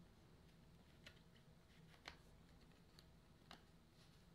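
Near silence broken by a few faint plastic clicks and taps, about one a second, as a trading card is slid into a rigid clear plastic card holder.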